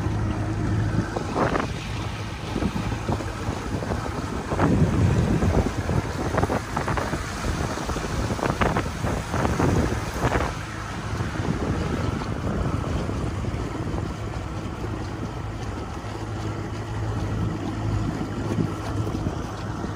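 Boat motor running steadily under way, a constant low hum, with wind rushing over the microphone in irregular gusts through the middle.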